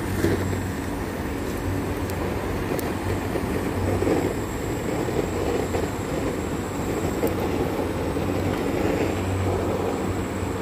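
Handheld butane flame torch on a gas canister burning steadily, its flame played over charcoal to light it.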